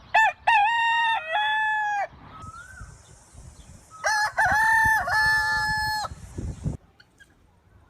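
A rooster crowing twice, each crow lasting about two seconds, with a steady high hiss under the second crow.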